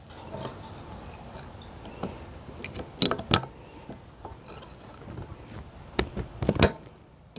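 Needle-nose pliers working a hairpin cotter pin out of the castle nut on an outboard's propeller shaft: scattered sharp metal clicks and scrapes, loudest in a cluster about three seconds in and again about six seconds in.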